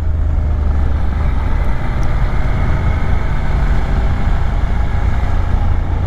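Motorcycle on the move, heard from a camera on the bike: a steady low rumble of engine and wind noise, with no change in pace.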